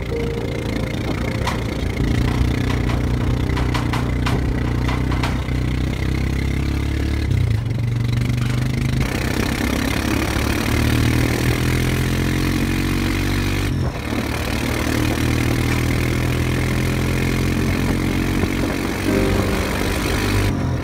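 An engine running, idling and revving, its pitch holding steady and then stepping to new levels every few seconds, with a few sharp knocks in the first seconds.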